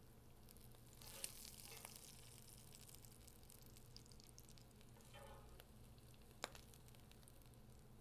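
Faint sizzle of browned ground beef in a hot skillet as a spatula scrapes crumbles out of the pan. There are two sharp clicks of the spatula, one about a second in and a louder one about six and a half seconds in.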